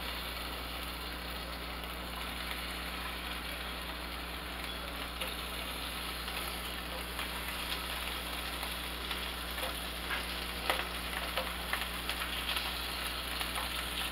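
Raw bacon pieces sizzling in a hot nonstick frying pan as more pieces are laid in one by one: a steady sizzle with small clicks and taps, more of them in the second half.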